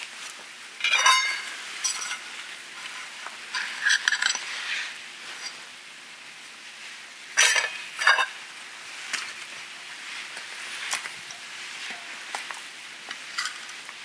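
Metal hooks clinking against the rim of a clay jar roaster and a steel plate as racks of pork back ribs are lifted out on their hooks. About a dozen short, sharp clinks, the loudest about a second in and a pair near the middle, over a low steady hiss.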